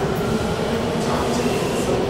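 Bombardier T1 subway train pulling out of the station and running under the camera, a steady rumble of wheels on rails.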